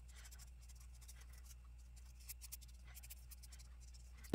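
Faint soft scratching of a small paintbrush stroking decoupage glue over a napkin on an egg, in short scattered strokes, with one sharp click near the end.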